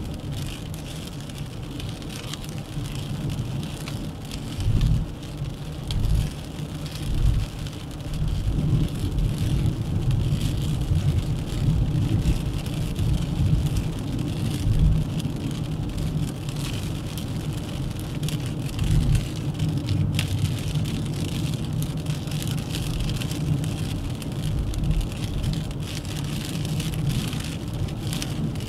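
Dacia Duster 1.3 TCe 4x4 driving on a road: steady tyre and road noise over a low rumble, with a few low thumps about five to seven seconds in.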